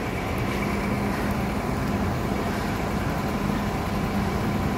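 A vehicle engine idling steadily: a constant hum over an even rumble that does not change.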